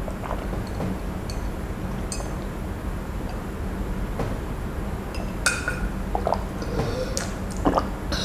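Drinking water from a glass: swallows, with a few small clinks of the glass.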